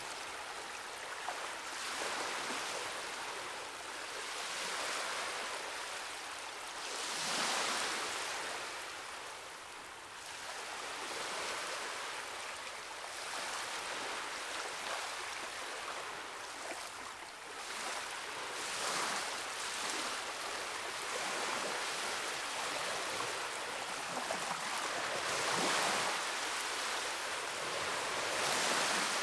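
Ocean surf washing against a rocky shore: a steady hiss of breaking water that swells and eases every few seconds, with stronger surges about a quarter of the way in, around two-thirds through, and near the end.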